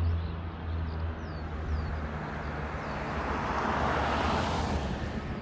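Qantas Airbus A380-800's four Rolls-Royce Trent 900 engines at takeoff power, a jet roar over a low rumble that swells to its loudest just past the middle and then eases slightly.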